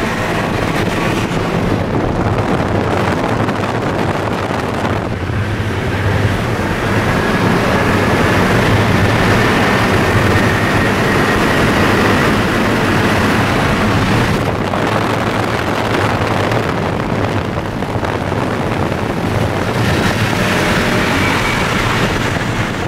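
A car accelerating hard at highway speed, heard from inside the cabin: a loud, steady roar of engine, wind and road noise, with a faint whine slowly rising in pitch. The roar dips briefly about five seconds in and again about fourteen and a half seconds in.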